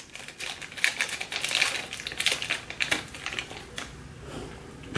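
Small clear plastic wrapper crinkling and crackling as fingers work it open: a quick, irregular run of sharp little crackles that thins out near the end.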